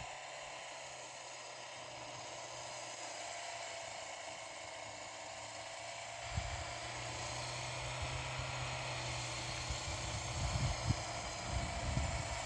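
Vehicle engine running with a steady low hum. About six seconds in, low rumbling and knocks join and the sound grows louder toward the end.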